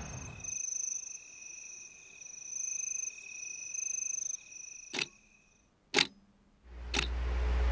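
Crickets chirping in a steady, high, pulsing trill that fades out after about five seconds, while a wall clock ticks three times, one tick a second. Near the end a low steady hum of a ceiling fan running comes in.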